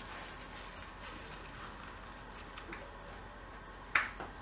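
Quiet room tone with faint handling noises from gloved hands working at the engine's intake ports, and one short sharp click or tap about four seconds in.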